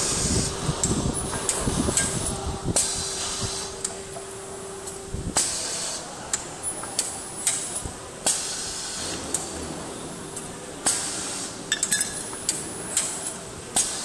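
CNC disc-type tool-changer magazine on an AC drive, running through its cycle: a steady motor tone for the first few seconds, then a sharp mechanical clunk about every two and a half to three seconds as it indexes, each clunk followed by a short hiss.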